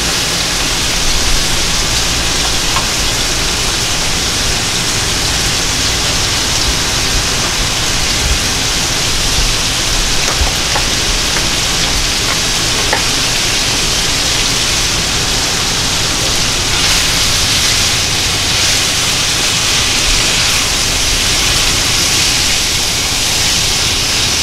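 Diced potatoes and onion frying in hot oil in a pan on an induction cooktop at its max-sear setting, a steady sizzle with a few faint clicks.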